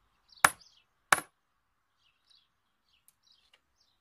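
Hammer striking a nail into a wooden plank, two sharp blows with a metallic ring, one near the start and one about a second in. Faint birds chirp afterwards.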